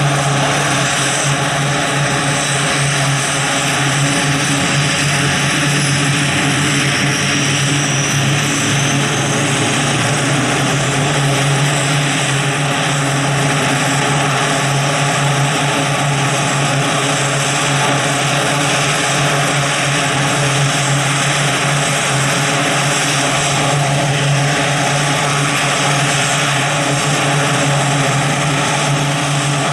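The two Allison T56 turboprops of a Grumman E-2C Hawkeye running steadily on the ground with chocks in, a low propeller drone under a steady high turbine whine.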